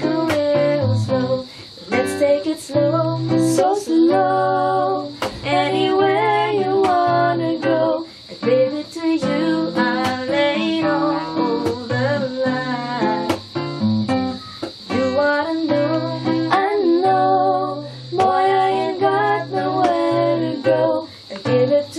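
A woman singing a slow Filipino pop song, accompanying herself on a nylon-string classical guitar.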